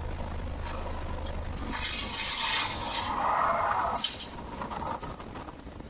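A race car at speed off the track: wind rushing over the microphone with a steady low drone at first, then a louder rough rushing from about two seconds in and a sharp hit near four seconds as it runs onto the grass.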